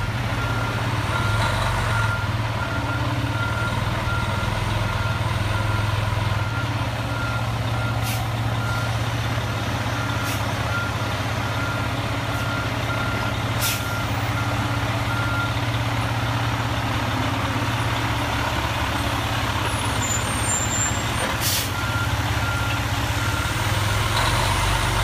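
Pierce fire engine's diesel engine running as the truck reverses, its back-up alarm beeping steadily. The beeping stops for several seconds about two-thirds of the way through and starts again near the end. A few brief clicks can be heard along the way.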